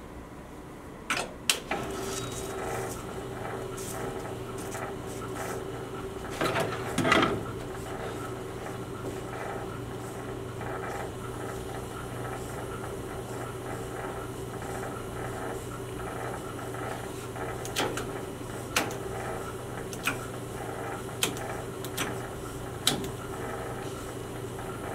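Steenbeck flatbed film editing table running, with a steady motor hum. Sharp clicks and knocks from its control levers come now and then: a pair in the first two seconds, a louder cluster a few seconds later, and a run of single clicks in the second half.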